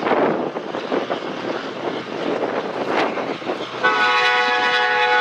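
Freight train tank cars and centerbeam flatcars rolling past, a steady rumble with occasional wheel clacks. About four seconds in, a locomotive air horn starts sounding a steady chord and holds.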